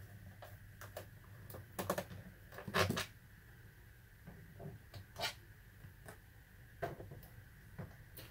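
Scattered small clicks and taps of a screwdriver and loose screws being handled against a laptop's plastic base and the table, with a few louder knocks about two, three and five seconds in.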